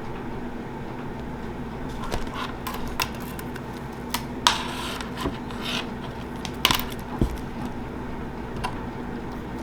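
Small metal parts of a 1/24 scale RC crawler clicking and clinking as they are handled and fitted by hand, in about ten scattered taps with the loudest about halfway through, over a steady low hum.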